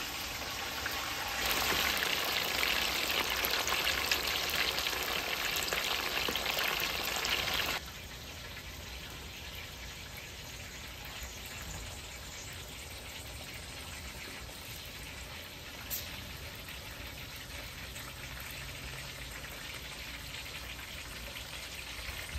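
Food frying in a pan, a steady sizzling hiss that is louder for the first several seconds and then drops suddenly to a quieter sizzle about eight seconds in.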